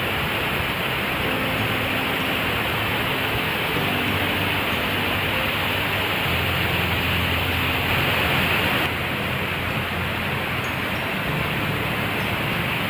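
Waterfall running with plenty of water, a steady, dense rush of falling water.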